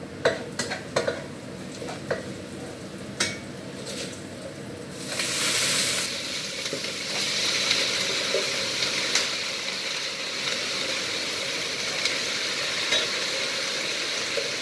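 Green vegetables going into hot oil in a wok: a loud burst of sizzling about five seconds in, settling into a steady sizzle. Before that and through it, a metal spatula clinks against the wok and the steel bowl.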